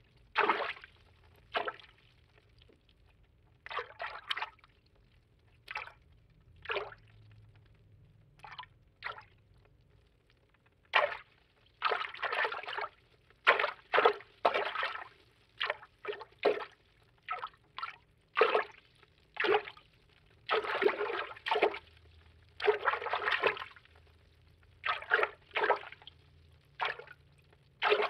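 Cartoon underwater water-movement foley: a string of separate watery swishes and sloshes, one after another with short silent gaps between. Most last well under a second, and a few longer ones run about a second.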